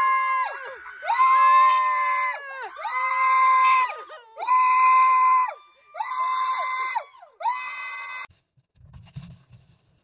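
A string of about six loud, high-pitched screams, each held steady for about a second with the pitch dropping away at the end, that stop abruptly near the end.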